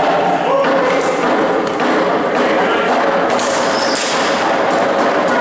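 Many voices shouting and talking over each other at once, with scattered thumps and clatter.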